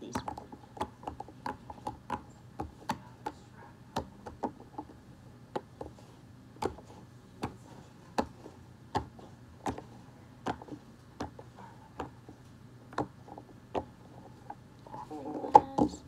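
Silicone push-pop bubble fidget board being popped with fingertips, one bubble at a time: a string of small pops, one or two a second. Near the end a louder cluster of pops and knocks as the board is gripped with both hands.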